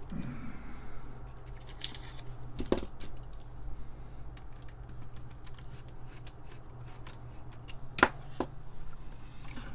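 Small clicks and taps of a tiny nut and the acrylic panel stack being handled while the nut is worked onto a case bolt. Two sharper clicks stand out, about a quarter of the way in and near the end, the second the loudest.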